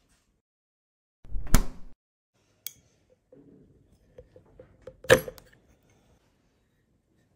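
A small ceramic bowl being handled, with two sharp knocks or clinks, about a second and a half in and about five seconds in, the first one with a dull thud. Between them come a lighter click and a quick run of soft ticks as a metal spoon touches the bowl.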